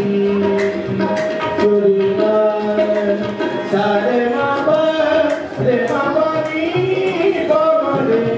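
Qawwali music: harmoniums holding sustained notes under male voices singing, with hand claps and hand-drum strokes keeping the rhythm.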